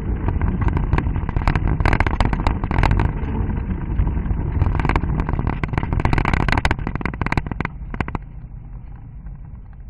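Car engine running as it drives a gravel track, heard from inside the car, with frequent sharp clicks and clatters from the loose stones under the tyres. Over the last couple of seconds the engine and clatter fade as the car slows.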